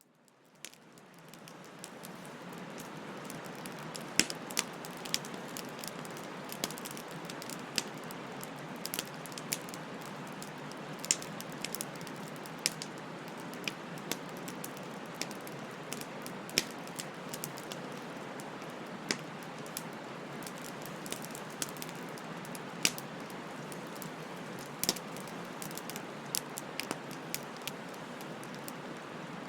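Open wood fire burning: a steady hiss with sharp crackles and pops at irregular intervals. It fades in from silence over the first two seconds or so.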